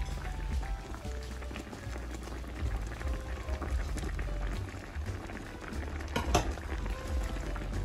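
A pot of food bubbling on the stove, under background music, with one sharp tap about six seconds in.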